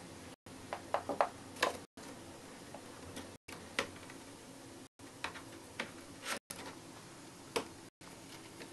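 Light, irregular clicks and taps as a hamster drags a hard bone-shaped dog biscuit over a wooden floor and into a cardboard box, the biscuit knocking against floor and cardboard. A quick cluster of clicks comes about a second in, then single knocks every second or so.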